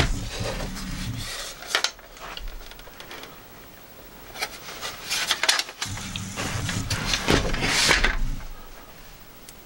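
A plastic laptop cooling pad with a metal mesh top being handled and turned over on a tabletop: clicks, knocks and rubbing, with a low rumble while it is moved near the start and again about six to eight seconds in.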